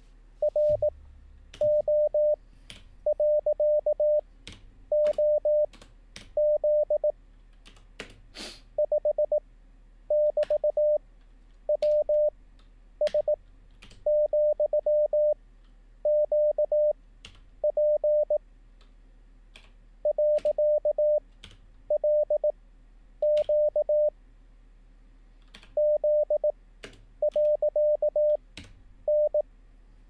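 Morse code practice audio: a 600 Hz sidetone keying random characters at 18 wpm, with the characters spaced far apart (Farnsworth timing), about one every second. Faint computer-keyboard clicks come between them as the copied characters are typed.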